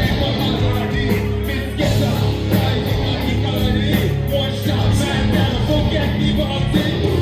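Live rock band playing loud: electric guitar, bass guitar and drums, with a vocalist singing into a microphone.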